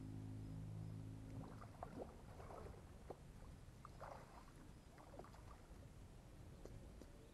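Faint splashing and sloshing of water from a hooked trout being played at the bank and drawn into a landing net. A faint low hum fades out about a second and a half in.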